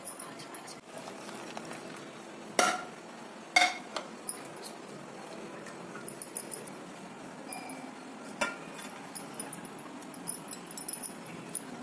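Kitchen utensils clinking: three sharp, ringing knocks of metal or glass, two close together a few seconds in and one more later, with small ticks between.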